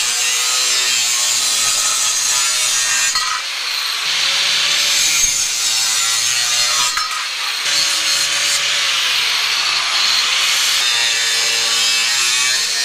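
Angle grinder cutting through aluminium bar stock: a loud, steady, hissing grind that starts abruptly. The motor's pitch dips a few times as the cut loads it, and the grinder stops at the end.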